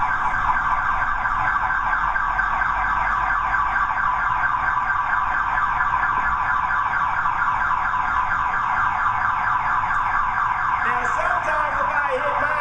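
Van's car alarm sounding continuously with a fast, repeating electronic warble, set off when a nearby car is locked.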